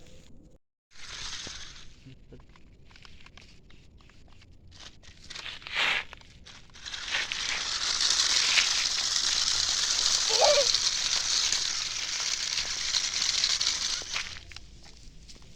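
Toy RC monster truck driving over rough ground: scattered light crackles, then about seven seconds in a loud, rough crackling hiss that lasts some seven seconds before dying away.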